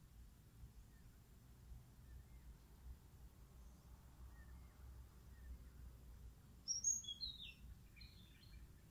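A bird calling briefly about two-thirds of the way in: a quick run of high chirps stepping down in pitch, followed by a few softer notes, over faint low outdoor rumble.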